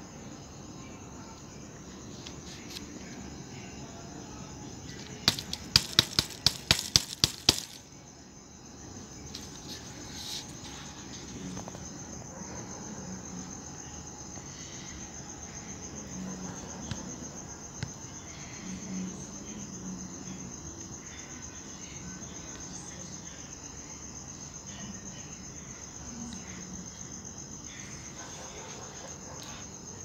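A steady, high-pitched insect trill runs on without a break. About five seconds in, a quick run of about ten sharp clicks is louder than anything else.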